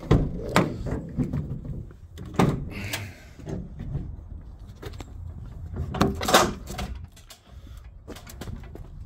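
A Volkswagen Crafter van's rear door is unlatched and opened, followed by clunks and metallic clatter as the aluminium loading ramp is handled and lowered. These come as a series of separate knocks, loudest in a cluster about six seconds in, over a steady low rumble.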